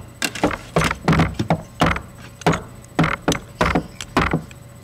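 A mineral specimen being scraped in a scratch-hardness test: a string of short, sharp scrapes and knocks, about three or four a second and unevenly spaced.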